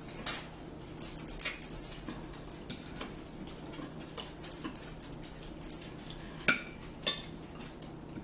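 Eating sounds at a table: chewing and mouth clicks close to the microphone, with scattered light clicks of a fork on a plate. Two sharper clicks come about two-thirds of the way through.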